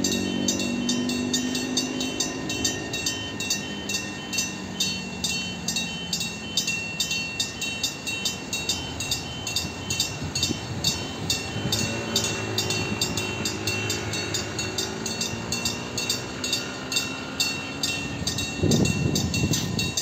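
Level-crossing warning bell ringing steadily, about two to three strokes a second, as a train approaches the crossing. The train's engine becomes audible past the middle, and a heavy rumble starts near the end as the train arrives.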